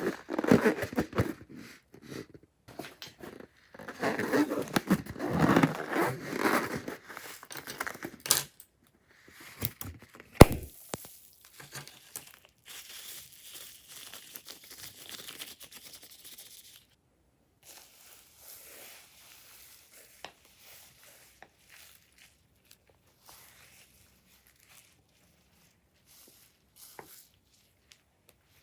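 Crunchy slime being squished and worked by hand, a dense crinkling crackle, with one sharp loud snap about ten seconds in; the crackling thins out to faint scattered clicks over the second half.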